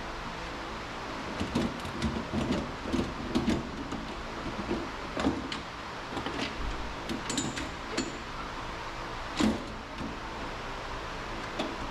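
Car door glass being worked out of the door: a run of clicks, knocks and rubbing of glass against plastic and the rubber channel, with a short high squeak about seven seconds in and one louder knock near nine and a half seconds. A steady low hum runs underneath.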